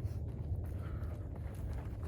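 A trail runner's footsteps on a snowy mountain trail, a faint irregular crunch, under a steady low rumble on the microphone.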